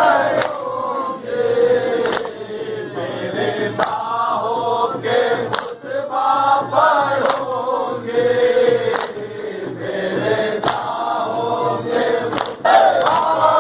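A crowd of men chanting a Muharram noha together, with sharp beats about once a second keeping time: matam, the rhythmic beating of chests by the mourners.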